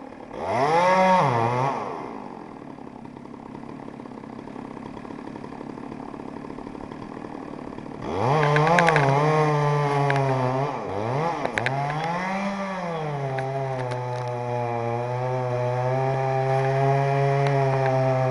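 Chainsaw revved up once and dropping back to a quiet idle, then throttled up again about eight seconds in. The pitch rises and falls through several revs before it holds steady at a slightly lower pitch, with a few sharp clicks among the revs.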